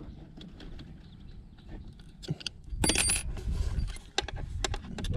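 Small clicks, knocks and light metallic clinks from gear being handled in a boat, with a louder clattering rattle about three seconds in, over a low rumble.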